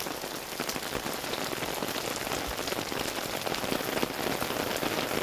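Heavy rain falling steadily, a dense patter of drops splashing on wet ground.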